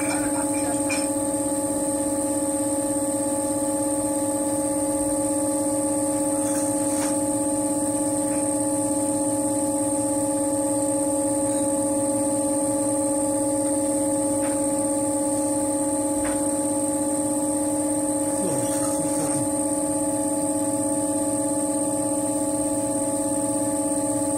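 Electric potter's wheel running with a steady hum of several unchanging tones, with a few faint scrapes or knocks now and then as hands work the clay.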